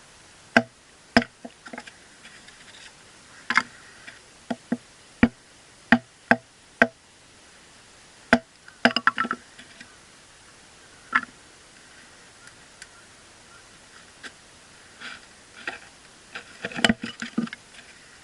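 Irregular sharp knocks and clicks of hard objects, some single and some in quick clusters, over a faint steady hiss.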